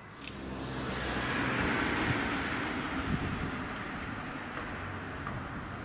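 A car passing by on the road: engine hum and tyre noise swell about a second in, are loudest around two seconds, then fade slowly.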